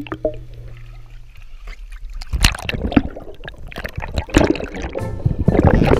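Muffled water sloshing and bubbling picked up underwater by a camera in its housing, quiet at first and then irregular swishes and knocks from about two seconds in.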